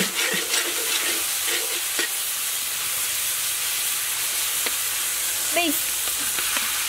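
Sliced shallots, green onion and garlic sizzling in hot oil in a metal pan, with a metal spoon scraping and clicking against the pan as it stirs them. A short squeak about five and a half seconds in.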